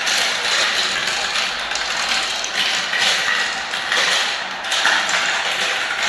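Many small balls rolling and clattering down a spiral-ramp marble run, a dense continuous rattle that swells and eases every second or so.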